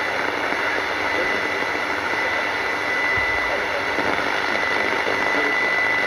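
Shortwave radio receiver putting out a steady hiss of static with a thin, continuous high tone over it: a jamming tone laid over a clandestine broadcast, which the signal is all but buried under.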